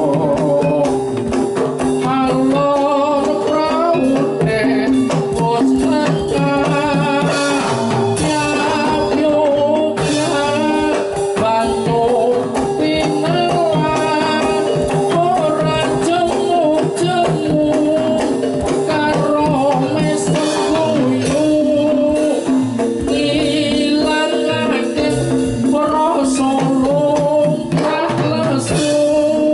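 Javanese gamelan ensemble playing jathilan music. A large double-headed kendang drum is beaten by hand over held gong and metallophone tones, with a sung vocal line.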